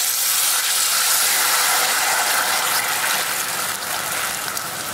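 Jaggery syrup sizzling as it is poured into hot coconut oil in a stainless-steel kadai: a loud, steady hiss that starts suddenly and eases slightly toward the end.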